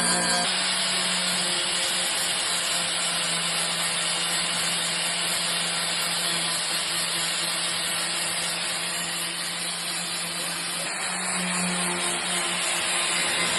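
A power tool running steadily with a loud, even hiss and a low hum, of the kind made in car body repair work.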